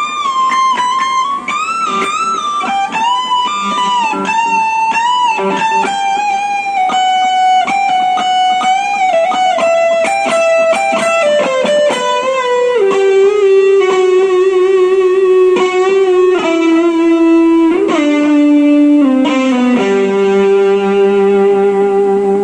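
Gibson Les Paul Supreme electric guitar playing a single-note lead line with string bends and vibrato. The line works its way down in pitch and ends on long sustained notes.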